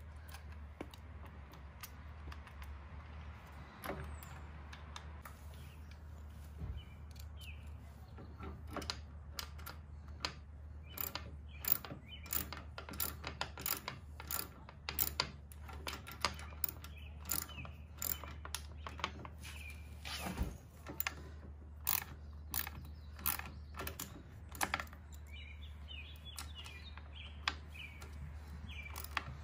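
Ratchet wrench clicking in short irregular runs as the floorboard mounting bolt is tightened down, starting about a third of the way in and stopping near the end.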